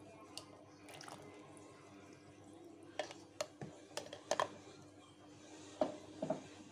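Milk-and-egg mixture poured into a plastic bowl of flour, faint, over a low steady hum. After that come light clicks and taps from kitchen utensils, a handful a little past the middle and a few more near the end.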